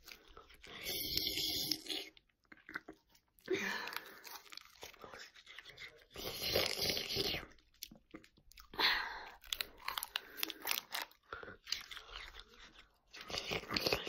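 Crunching close to the microphone, in bursts of a second or two that come every few seconds.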